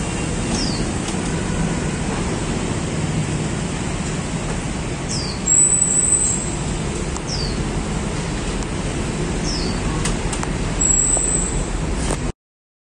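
Ford Transit's electric sliding side door, worked by remote, running open and then closed over a steady hum. A short high-pitched tone and a rise in level come about halfway through, and again near the end.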